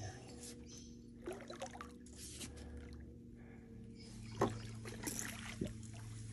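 Quiet sounds around a small fishing boat: a steady low hum under light knocks and clicks, with small trickles and splashes of water, the sharpest knock about four seconds in.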